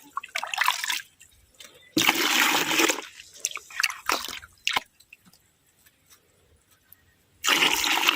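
Scoops of liquid fermented manure fertilizer poured into a plastic bucket, splashing in three separate pours of about a second each, with small knocks and drips between.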